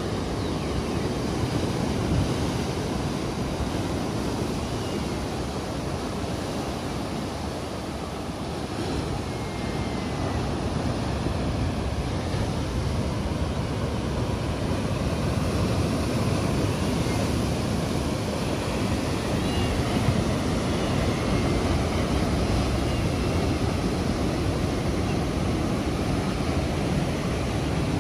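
Ocean surf washing onto the beach: a steady rushing noise that swells a little after about ten seconds.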